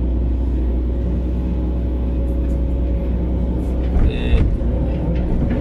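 SDLG hydraulic excavator's diesel engine running steadily under work, heard from the operator's cab, with a brief louder, higher-pitched sound about four seconds in.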